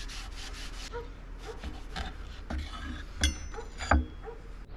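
Beeswax rubbed in quick strokes along the hot steel of a forged throwing-knife blade, melting into the surface. After about a second come scattered knocks, then two sharp metallic clinks of blacksmith tongs against the steel near the end.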